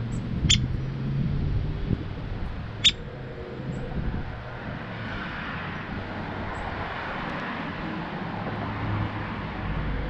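Two short, sharp, high ticks about two and a half seconds apart from a downy woodpecker at a wire-cage suet feeder. A car passes on the road in the background midway, over a steady low hum.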